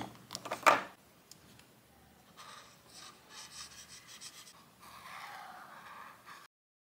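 Two sharp clicks in the first second, then faint scratchy strokes of a brush-tip marker being drawn over sketchbook paper; the sound cuts off suddenly near the end.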